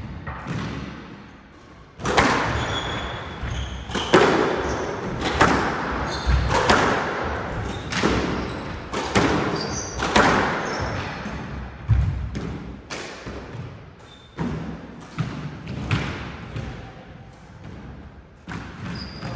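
Squash rally: the ball is struck by racquets and smacks off the court walls about once a second, each hit echoing in the squash court. The rally starts about two seconds in and the hits thin out in the last few seconds.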